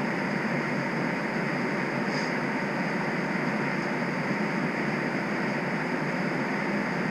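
Steady, even hum and hiss inside a streetcar standing still in the rain, with a faint steady high whine on top.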